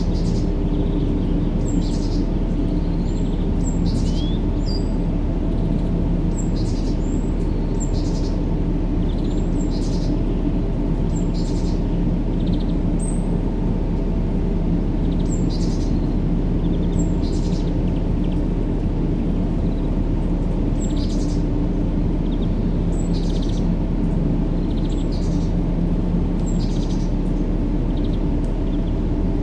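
Steady, deep white-noise bed for baby sleep, muffled with nothing above the low range, with short high bird chirps scattered over it every second or two.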